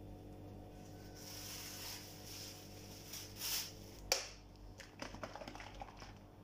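Kitchen handling noises: soft rustling as pancakes are moved on a cloth with a silicone spatula, then a sharp click about four seconds in and a run of small clicks as a plastic squeeze bottle of batter is picked up and handled, over a faint steady hum.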